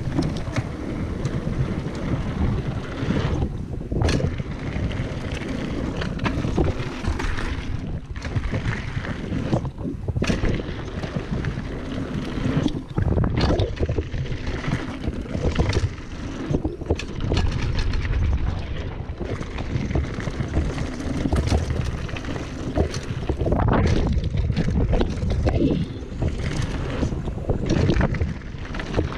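Wind buffeting the action camera's microphone over the rumble of a Trek Slash 8 full-suspension mountain bike's tyres rolling fast down a dirt trail. Frequent irregular knocks and rattles come from the bike as it runs over bumps.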